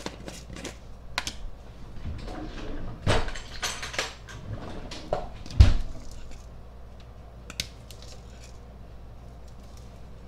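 Clicks, taps and light scraping of a grated parmesan shaker and a measuring spoon as the cheese is measured out and tipped into a bowl of pasta-salad ingredients, with one heavier thump about halfway through.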